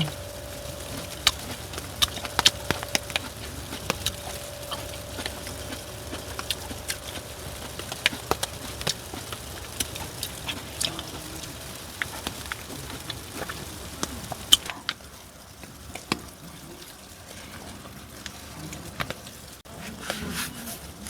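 Raindrops tapping irregularly on a wet tent, with a faint steady hum that stops about 14 seconds in.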